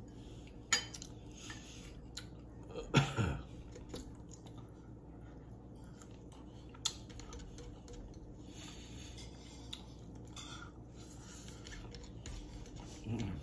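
Cutlery clinking against plates and chewing during a meal, with scattered sharp clicks; the loudest clatter comes about three seconds in.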